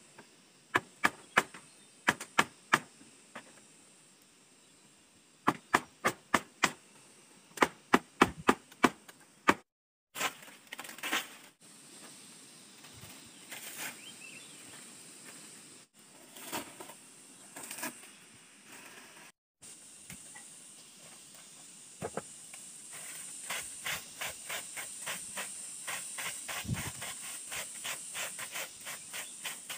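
Hand work on a bamboo hut: runs of sharp knocks on bamboo, several a second, in the first third, then rustling of dry thatch, and near the end fast, even scraping strokes.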